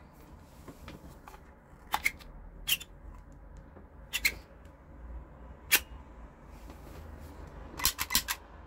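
Sharp mechanical clicks from a Glock 18 replica pistol lighter being handled, some single and some in pairs through the middle. Near the end comes a quick run of four clicks as the trigger is worked.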